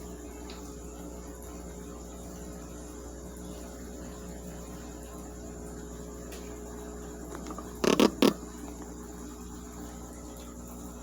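Consul washing machine running with a steady hum during its drain, cut about eight seconds in by two sharp, loud clicks close together.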